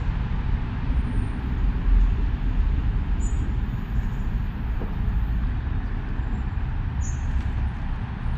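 Narrowboat engine running steadily as the boat cruises slowly: a constant low rumble.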